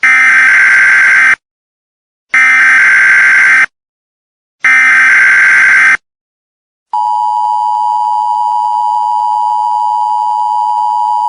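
Emergency Alert System header: three loud, identical bursts of screechy digital data, each about a second and a half long with short gaps between them. About seven seconds in, the steady two-tone EAS attention signal starts.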